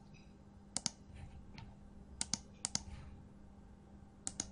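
Computer mouse clicking: four sharp double clicks, each pair a quick press and release, spread over a few seconds above a faint steady low hum.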